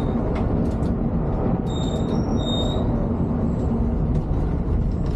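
Volvo B11R coach running on the road, heard from the front of the cabin: a steady low rumble of its six-cylinder diesel engine and the tyres. A few short, high-pitched beeps come about two seconds in.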